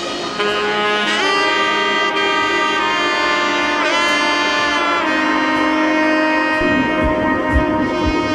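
Background music: a sustained saxophone-like lead melody with sliding notes over held chords, with a low beat coming in near the end.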